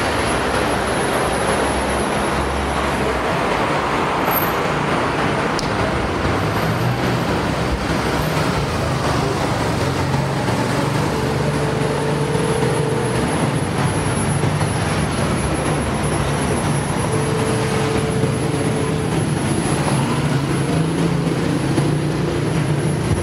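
Steady city road traffic: vehicle engines running and passing without a break, with a short steady tone sounding twice, about halfway through and again later.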